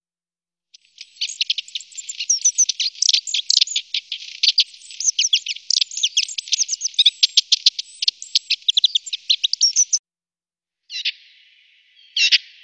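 A small songbird's fast, continuous twittering song of high chirps, which cuts off suddenly about ten seconds in. Two short, separate bird calls follow near the end.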